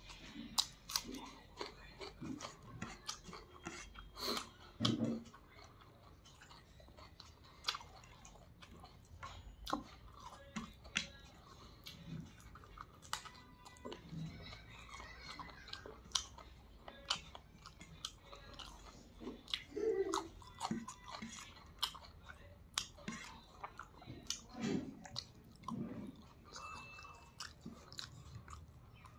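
A man chewing a mouthful of chicken curry and rice eaten by hand, with wet lip-smacking and crunching bites of raw onion slice. The sound is a string of short, irregular smacks and clicks.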